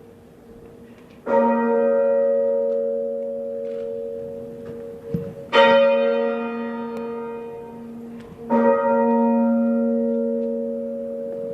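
Church bell ringing slowly: three separate strokes a few seconds apart, each ringing on and fading away, the middle one the loudest.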